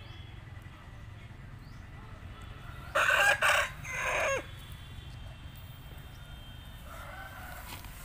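A parrot-beak Aseel rooster crows once, about three seconds in: a crow in three parts lasting about a second and a half, the last part falling away in pitch. A fainter call follows near the end.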